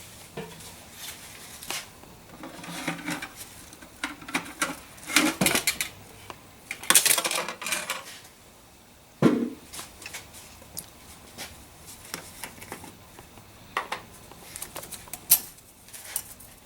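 Scattered clicks, knocks and plastic clatter from handling oil bottles and a funnel, with a couple of short rustling stretches.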